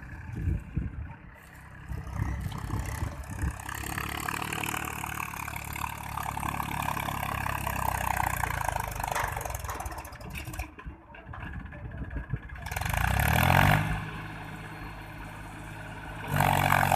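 Mahindra tractor's diesel engine running under load as it hauls a loaded trailer. It revs up sharply about two-thirds of the way in, eases off, then revs hard again near the end.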